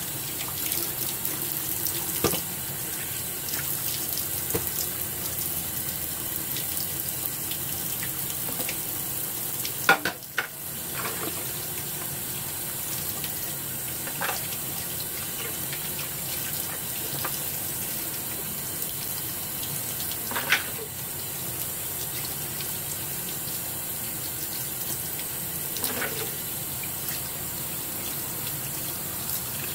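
Kitchen faucet running steadily into a sink as Dungeness crab pieces are rinsed under it. A few short knocks of crab shell against the sink are heard, the sharpest about a third of the way in and again about two thirds in.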